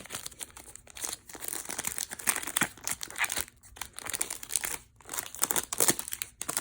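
Perfume packaging being unwrapped by hand: wrapping crinkling and rustling in irregular crackles with a few short pauses.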